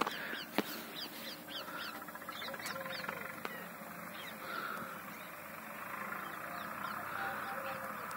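Small birds calling: a run of short, high chirps, each falling in pitch, thick over the first four seconds and sparser after, over a faint steady outdoor hiss. A single sharp click about half a second in.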